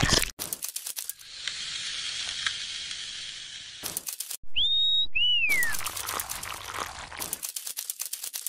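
Cartoon sound effects: bursts of rapid clicking and tapping, a steady hiss for a couple of seconds, and two short whistle glides about halfway through, the first rising and the second falling.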